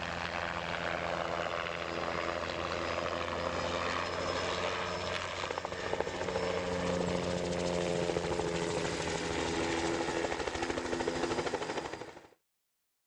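Bell 206B3 JetRanger helicopter running steadily, the beat of its two-blade main rotor mixed with its turbine engine, a little louder about six seconds in. The sound cuts off suddenly near the end.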